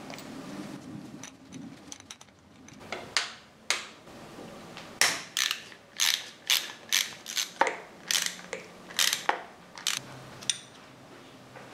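Ratchet driver with a hex bit clicking in a string of sharp, irregularly spaced clicks, about two a second, as stainless cap-head bolts are run in at the base of a Harley Sportster engine's pushrod tubes.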